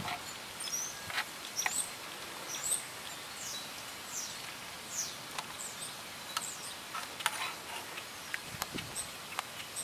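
Birds chirping, with a series of short, high notes that fall in pitch, over a faint outdoor hiss. Scattered light clicks and scrapes come from a metal slotted spoon stirring soup in a cast iron skillet.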